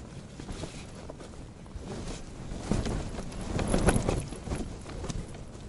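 Strong wind buffeting the fabric walls of a pop-up ice-fishing tent, the fabric flapping and crackling in irregular strokes, with a harder gust about halfway through.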